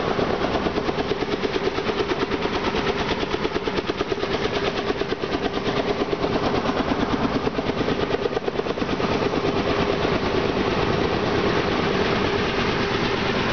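Helicopter running: a loud, steady, rapid pulsing with a steady hum underneath.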